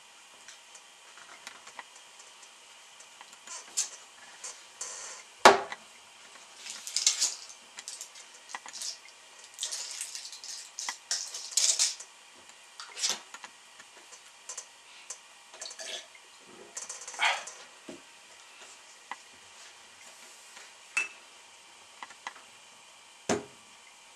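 Objects being handled on a tabletop: scattered light clicks and clinks with brief scraping noises, and a sharp knock about five seconds in and another near the end.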